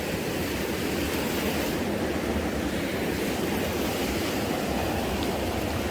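Steady rush of stream water, an even wash of noise.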